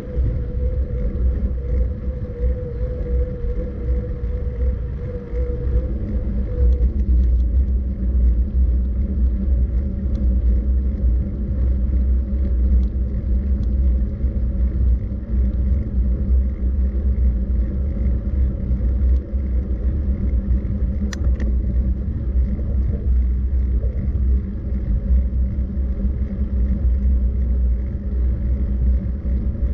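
Steady low rumble of wind and road noise on a camera travelling along the route. A thin steady tone runs underneath for the first six seconds or so, then stops, and a single short click comes about two-thirds of the way through.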